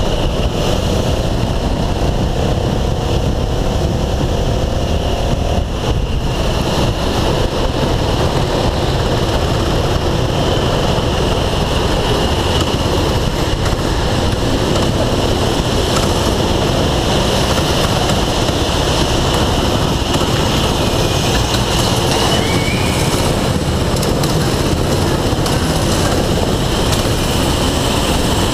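Go-kart engine running at racing speed, heard from on board, loud and steady under a dense rushing noise; it dips briefly about six seconds in.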